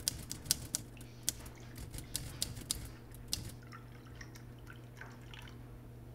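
Typewriter keys clacking in quick irregular strokes, stopping about three and a half seconds in. Then coffee is poured from a pot into a mug with a faint trickle.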